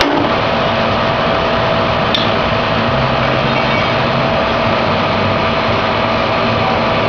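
Landis 2 1/2-inch Model A threading machine running steadily through a hollow mill cutting operation, a continuous mechanical noise with a steady hum-like tone and one sharp click about two seconds in.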